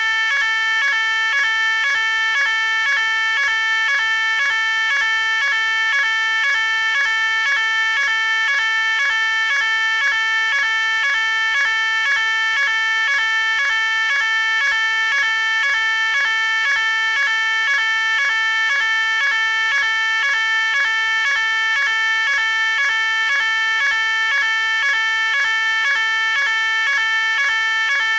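Electronic fire alarm sounding continuously: a loud, high-pitched tone rapidly alternating between two pitches, with no break.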